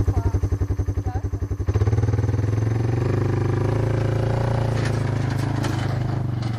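A small engine running with a rapid, regular low chug, then changing about two seconds in to a steadier, smoother drone. A few sharp clicks come near the end.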